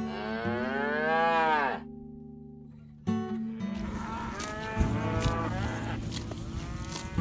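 A cow mooing: one long, loud call that rises and then falls in pitch, lasting nearly two seconds. About four seconds in, fainter lowing calls follow over outdoor rustle.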